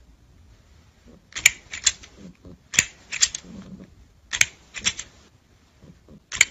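Green plastic crocodile toy clacking: sharp hard clicks in quick groups of three, a group about every second and a half.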